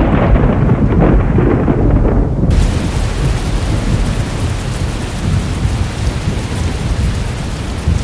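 Thunder rumbling low, then about two and a half seconds in a heavy downpour of rain starts abruptly and keeps falling steadily.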